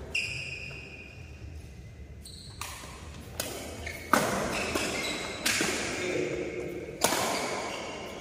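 Badminton rally: rackets striking the shuttlecock in a string of sharp, echoing cracks, about six in eight seconds, the loudest about four and seven seconds in.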